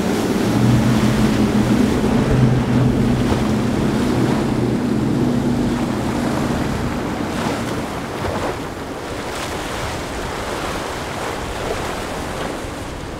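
Twin Yamaha 300 outboards on a center console boat running at speed with a steady drone, over the rush of spray and breaking waves. About seven seconds in the engine tone fades, leaving water wash and wind buffeting the microphone.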